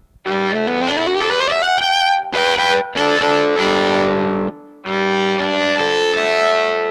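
Yamaha SV-150 electric violin played through one of its built-in sound effects: a long upward slide in pitch, then bowed notes, a short break, and a last phrase that rings on and fades.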